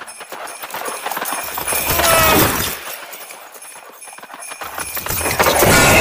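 Sound effect of hooves clip-clopping at a gallop for flying reindeer, swelling louder about two seconds in with falling pitched tones. A loud noisy burst begins near the end.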